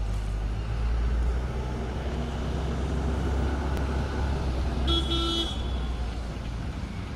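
Steady low outdoor rumble, with a short two-part horn toot about five seconds in.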